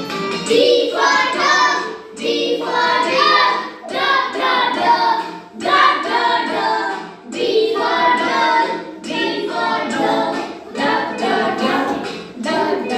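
Singing with musical accompaniment: a song sung in phrases about two seconds long.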